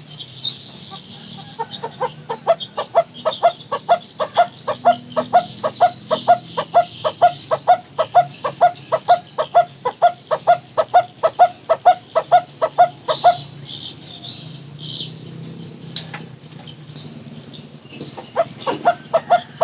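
A barbet calling a long, even series of short hollow 'tuk' notes, about three a second. The notes start about two seconds in, stop around thirteen seconds, and start again near the end. Insects trill high in the background.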